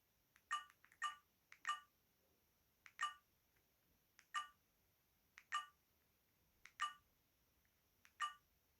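Alcatel VM202 mobile phone key tones as its buttons are pressed to move through the menus: about eight short beeps spaced unevenly, each just after a faint key click.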